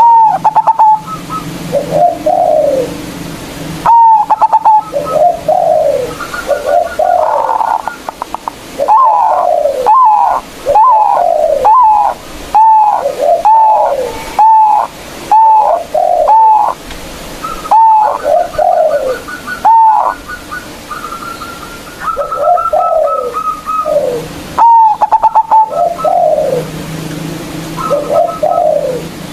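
Zebra dove (perkutut) singing loudly: phrase after phrase of quick staccato notes, each run ending in short falling coos, repeated again and again.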